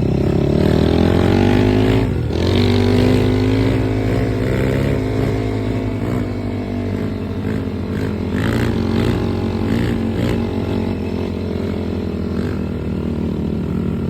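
Yamaha ATV (quad bike) engine running under load. The revs climb over the first two seconds, dip briefly, then rise and fall unevenly.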